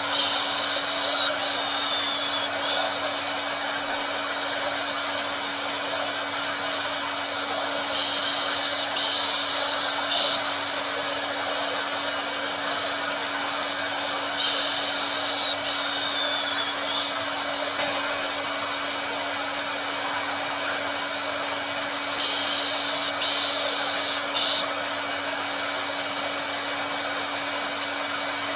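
Electric hair dryer running continuously: a steady whoosh of air over a constant motor hum, with the high hiss swelling briefly about every seven seconds.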